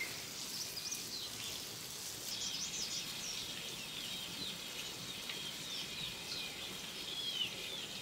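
Birds chirping: many short, high calls, one after another from about two seconds in, over a faint steady background hiss.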